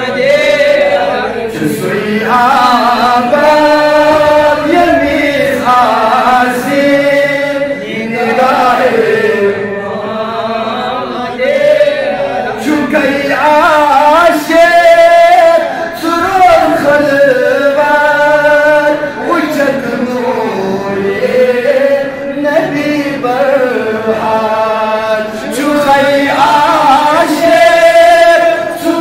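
A man's solo voice chanting devotional verse in long, sliding, held phrases, each a few seconds long with brief pauses between them.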